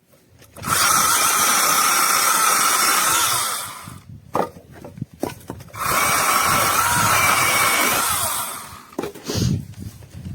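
Small battery-powered brushless mini chainsaw (VIWKO 6-inch) running with a steady whine in two bursts of about three seconds each, with a few short knocks and clicks between and after them.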